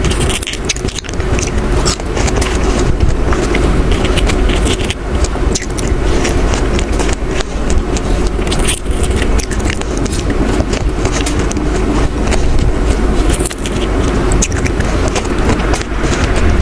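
Strawberries being chewed close to the microphone: many small wet clicks and smacks over a steady low rumble.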